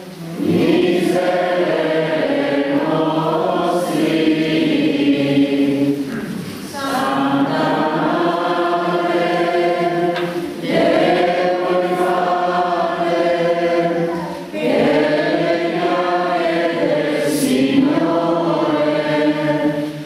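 Congregation singing a hymn together, in long phrases of about four seconds with short breaks between them.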